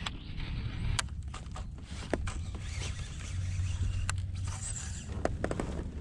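Handling noise from rod and kayak: scattered light clicks and taps over a steady low rumble.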